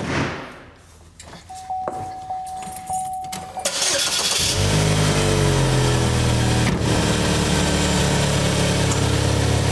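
A thump, then a steady tone for about two seconds. About four seconds in, a car engine cranks and starts, and its revs settle into a steady idle. The exhaust leaks through a crack in the muffler.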